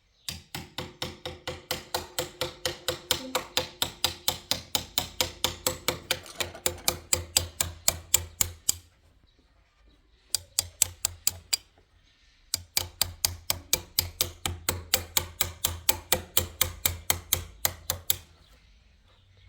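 Hammer tapping in quick, even blows, about five a second, in three runs: a long run of about eight seconds, a short one, then about five and a half seconds more.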